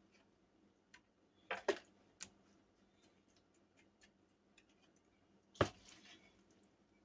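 Utensil and container knocks while suet mix is packed into suet-cake holders: a few sharp knocks, two in quick succession about a second and a half in and a louder one past the middle, with faint ticks and clicks between.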